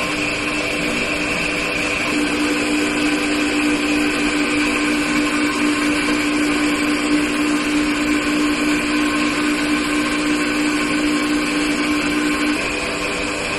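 Steady motor hum inside an enclosed Ferris wheel gondola, a pitched drone over a whooshing hiss, the drone dropping out near the end.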